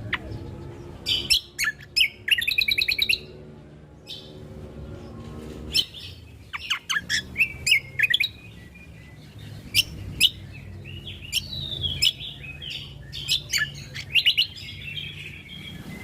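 Cucak kombo (kecial kombok) singing: a string of sharp chirps and quick trills, with a fast rattling run about two to three seconds in. A steady low hum sits beneath the song.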